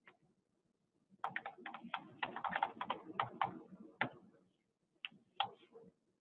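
Typing on a computer keyboard: a quick run of keystrokes from about a second in until past four seconds, then a few single key presses near the end.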